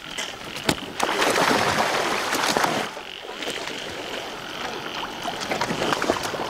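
A loud rush of splashing, streaming water and flapping wet wings as a cormorant is swung aboard, lasting about two seconds. Then quieter dripping and small knocks around the basket. A steady, pulsing high-pitched chorus runs in the background.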